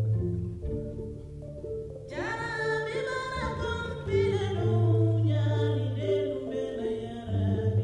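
Music over a repeating pattern of low notes and a deep bass, joined about two seconds in by a high singing voice that slides upward and then wavers.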